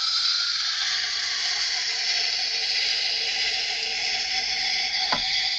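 Kitchen knife being ground on a water-cooled sharpening wheel: a steady wet grinding hiss of steel against the turning stone, with one short tick about five seconds in.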